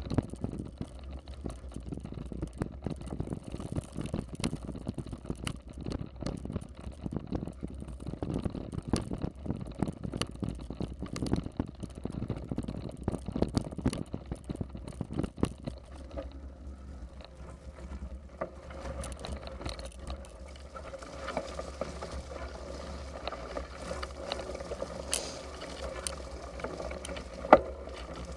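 Bicycle ridden over a rough road, heard from a camera mounted on the bike: a dense run of knocks and rattles over a steady low rumble of tyres and wind. The knocks thin out about two-thirds of the way through, leaving a steadier hum, and one sharp knock comes near the end.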